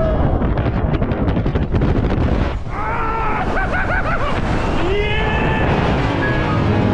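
Heavy wind noise rushing over the microphone of a camera carried on a fast canyon swing, with a man's open-mouthed yells over it from about three seconds in to nearly six seconds.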